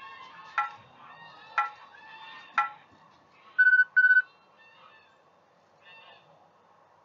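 Three short sharp pips about a second apart, then two short electronic beeps, like a countdown signal from a timer or phone; the beeps are the loudest sounds. Faint high rising-and-falling calls sound in between.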